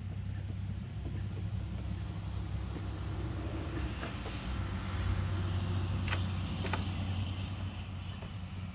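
An engine runs steadily with a low hum, and two light sharp clicks come about six and seven seconds in.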